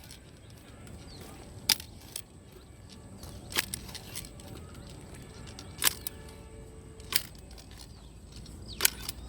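Sharp, short clicks or taps, one every second or two, over a faint outdoor background.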